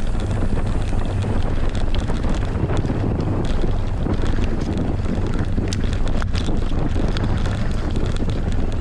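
Heavy wind noise buffeting the microphone during a fast mountain-bike descent on a Merida One-Sixty, over a steady low rumble. Many short rattling clicks from the bike run through it.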